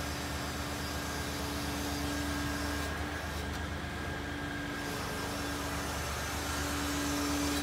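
A steady machine drone: a constant low hum with one held tone over it.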